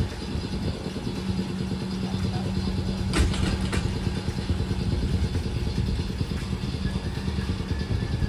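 Replica heritage streetcar running, heard from on board: a steady rumble with a low hum that comes in about a second in, and a single sharp clank a little past three seconds.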